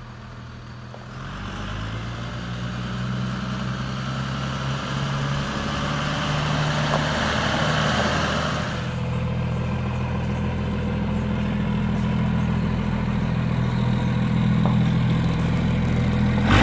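1999 Dodge Ram's 5.9-litre 24-valve Cummins turbo-diesel inline-six running as the truck drives up on gravel, with tyre crunch on the gravel that stops about nine seconds in, after which the engine idles steadily.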